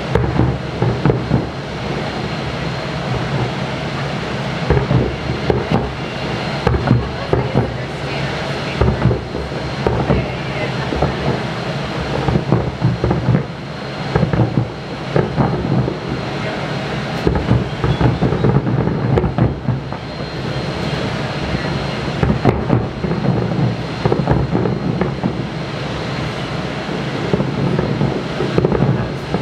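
Fireworks display: a rapid, continuous run of bangs and crackles over a steady rumble.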